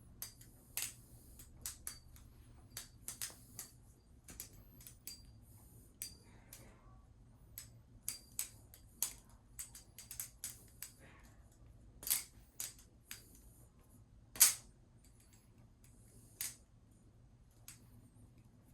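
Balisong (butterfly knife) being flipped freestyle: irregular sharp clicks and clacks as the handles swing and strike each other, with a few louder clacks later on.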